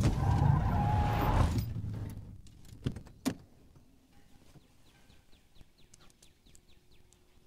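Vehicle rumble heard from inside the cabin, fading away over about two seconds, then two sharp clicks about half a second apart, then faint ticks.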